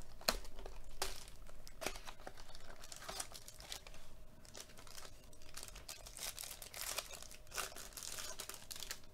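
Foil wrapper of a Topps Museum Collection trading card pack being torn open and crumpled by hand: irregular crinkling and tearing, busiest near the middle and again near the end.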